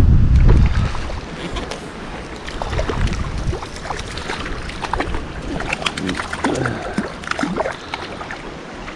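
A small trout splashing and thrashing at the water's surface as it is played in on a fly line, a run of short sharp splashes over the steady hiss of the river. A rumble of wind on the microphone in the first second.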